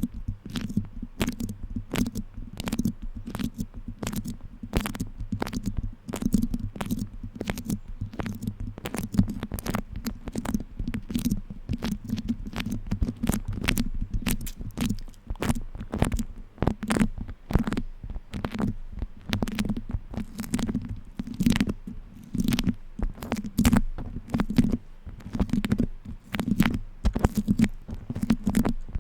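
Beeswax food wrap crinkled and handled close to the microphone: rapid, irregular crackles and sticky pops from the waxed cloth, over a low, muffled handling rumble.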